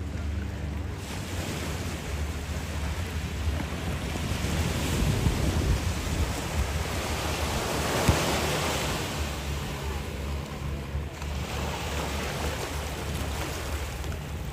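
Sea waves washing on the beach, one wash swelling to its loudest about halfway and then easing, with wind rumbling on the microphone.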